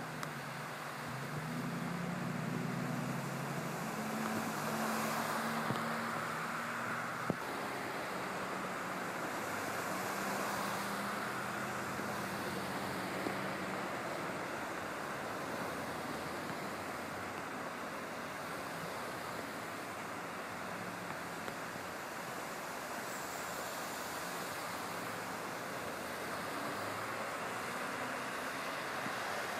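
Cars and trucks driving through deep floodwater on a highway: a steady rush of tyres sloshing and spraying water, with an engine hum under it through the first half.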